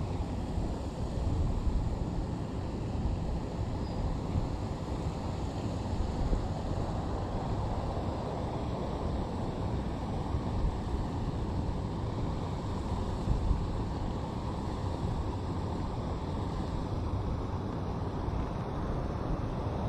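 Wind buffeting the microphone: a steady low noise that rises and falls slightly, with no distinct events.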